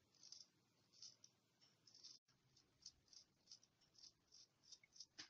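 Near silence, with faint, quick high-pitched clicks repeating about three times a second.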